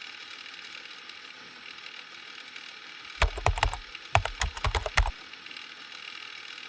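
A quick run of a dozen or so sharp clicks and knocks, each with a low thud, starting about three seconds in and lasting about two seconds in two clusters, over a steady hiss.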